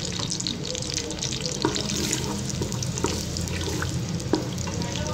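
Sliced onions sizzling in hot cooking oil in an aluminium pressure cooker, with a few sharp clicks of a wooden spoon stirring against the pot.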